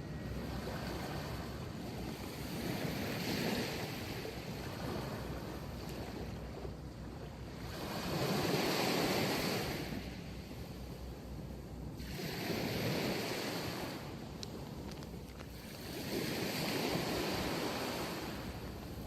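Sea waves breaking and washing up a sandy beach, the surf swelling and fading four times, every four seconds or so.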